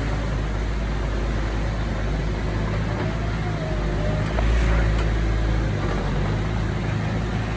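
Heavy diesel earthmoving machinery running steadily with a low rumble, swelling louder for about a second at about four and a half seconds in.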